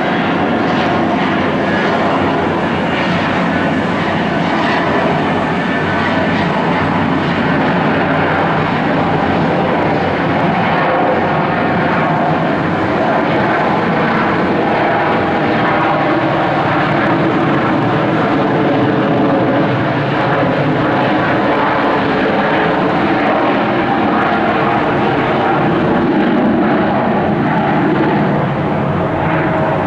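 Airliner jet engines running: a loud, steady, continuous engine noise with faint steady tones through it.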